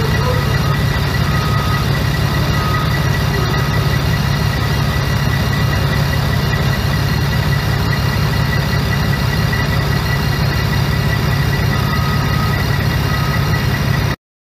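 Heavy diesel engines of a Caterpillar excavator and a dump truck running steadily as the excavator pushes the truck up a dirt slope, with short beeps repeating at intervals. The sound cuts off suddenly near the end.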